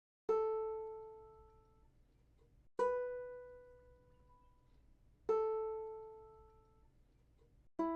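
Ukulele plucked one note at a time: three single notes about two and a half seconds apart, each left to ring out and fade, then a fourth note near the end that is cut off short.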